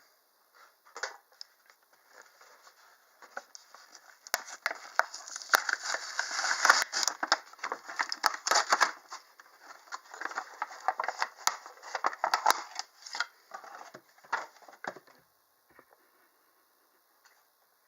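A toy aquarium kit's packaging being opened and unpacked by hand: irregular rustling and crinkling with many sharp clicks and taps. It is busiest through the middle and dies away near the end.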